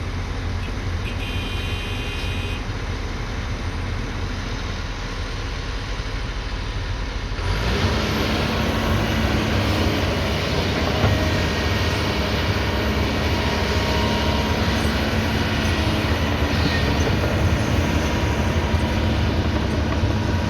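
Kobelco 220 excavator's diesel engine running steadily under work, getting louder and harsher about seven seconds in.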